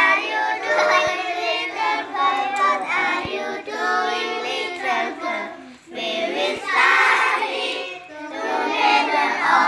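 A group of children singing together, with a short break a little past halfway before the singing picks up again.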